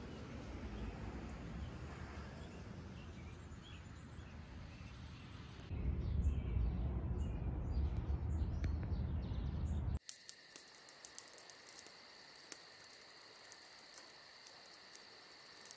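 Outdoor nature ambience with scattered bird chirps; about six seconds in a low rumble rises beneath them. From about ten seconds a steady, high insect trill with evenly repeating pulses takes over.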